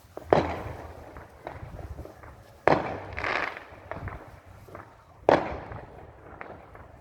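Fireworks exploding: three loud bangs about two and a half seconds apart, each trailing off in an echoing rumble, with smaller pops in between.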